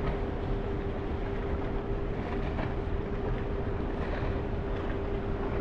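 Steady hum of a large ship's machinery, a single unchanging tone over a low rumble, with wind noise on the microphone.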